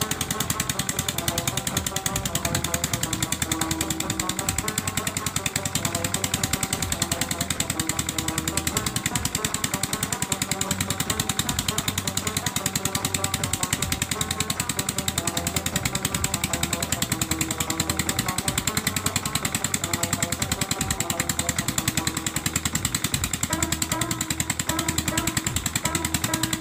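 Petter single-cylinder diesel engine running steadily with a fast, even pounding beat, driving a mini tubewell pump coupled directly to its shaft.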